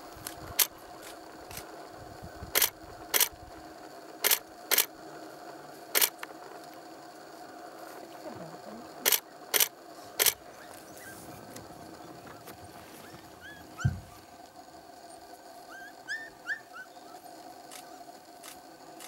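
Camera shutter firing, sharp clicks in single shots and quick groups of two or three, about nine in all over the first ten seconds. Faint short rising chirps come in the second half, with one low thump.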